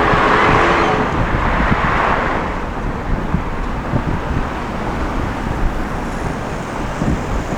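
Road and traffic noise from a moving vehicle, with wind rushing over a roof-mounted microphone and a steady low rumble. A louder hiss in the first couple of seconds fades away.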